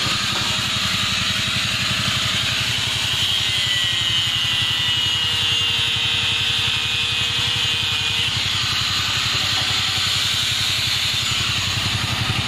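Electric angle grinder cutting metal, a steady high grinding hiss with a faint motor whine. A low, rapid, even pulsing runs underneath.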